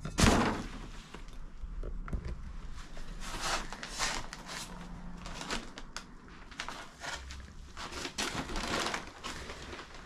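A heavy ornate metal piece knocks down onto debris-covered flooring just after the start, then footsteps crunch and rustle through fallen plaster, paper and plastic bags, with scattered small crackles.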